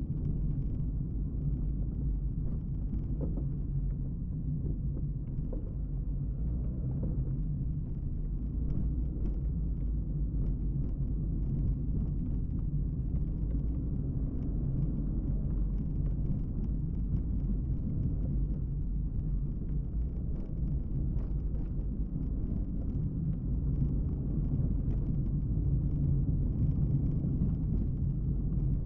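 Car driving along a town road: the steady low rumble of engine and road noise, with no big changes.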